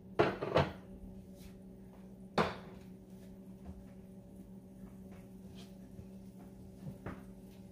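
Kitchenware being handled: two quick sharp knocks at the start, another about two and a half seconds in, and a softer one near the end, over a faint steady hum.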